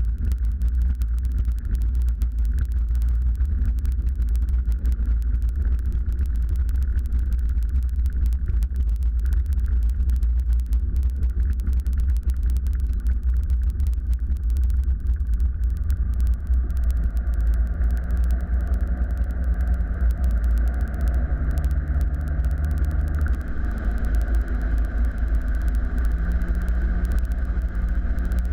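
Cozy Mk4 canard aircraft's rear-mounted pusher engine heard from inside the cockpit during the landing rollout and taxi, over a deep steady rumble. About halfway through, a clearer engine hum with pitched tones comes in and steps up in pitch twice.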